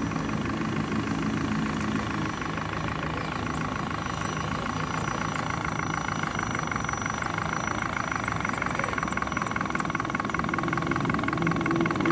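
Electric motor and gearbox of a radio-controlled scale crawler truck whining steadily as it drives slowly over rough ground.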